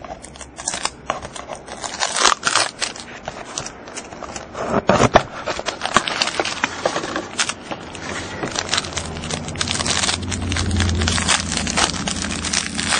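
A sealed trading-card box and pack being opened by hand: plastic wrapper crinkling and tearing, scraping and clicking of cardboard and cards handled in quick irregular strokes.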